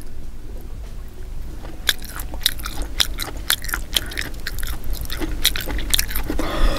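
Close-miked chewing of slimy, hot-and-spicy konjac strips: irregular mouth clicks and smacks, more frequent from about two seconds in.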